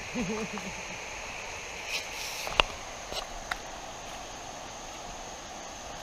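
Steady high-pitched chorus of insects. A brief low voice sounds in the first second, and a few sharp clicks follow, the loudest a snap about two and a half seconds in.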